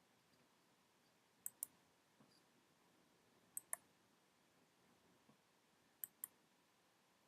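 Three double-clicks on a computer, each a quick pair of sharp clicks, spaced about two seconds apart, over near silence.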